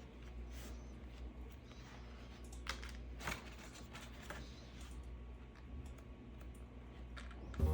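A few faint clicks and taps of light handling over a low steady hum in a small room.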